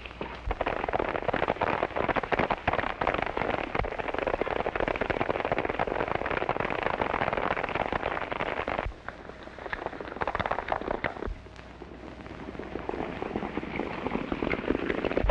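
Horses galloping in a dense clatter of hoofbeats, with sharp cracks of gunshots among them. The din eases briefly twice, about nine and eleven seconds in.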